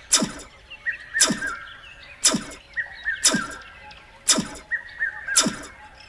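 Intro sound effects: a quick falling swoop about once a second, each one as another letter drops into place, with short bird-like chirps between them.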